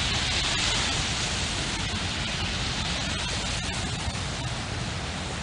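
Beach ambience at the water's edge: a steady rushing hiss over a low rumble, easing slightly toward the end.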